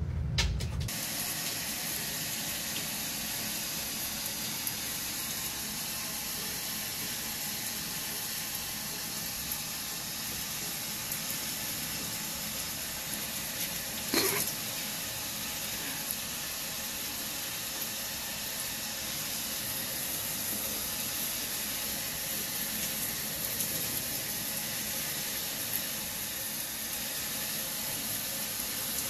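Shower head spraying water in a steady hiss, with one brief pitched sound about halfway through.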